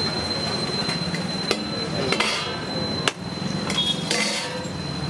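Stainless-steel ladle and lids clanking against large steel serving pots: a few sharp metallic knocks, the loudest about three seconds in, over a background of street crowd chatter.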